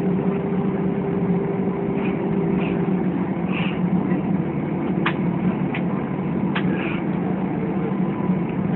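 Steady jet engine and cabin noise heard inside an airliner's cabin as it taxis after landing, with a faint steady hum that stops about three seconds in. A few short sharp clicks come in the second half.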